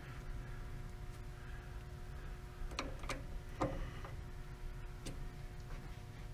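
A machine tool's motor running with a low steady hum, with a few light clicks about three seconds in and again near five seconds.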